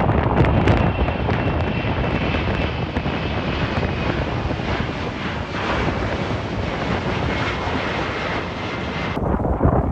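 Airliner engines running, a loud rumble with a faint high whine over it, mixed with wind buffeting the microphone.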